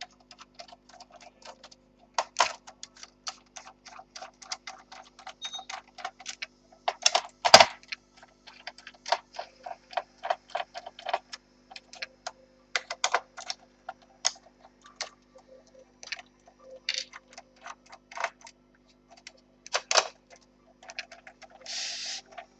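Screwdriver backing out the screws of a laptop's plastic case: rapid light clicking, several clicks a second, with a few louder clacks.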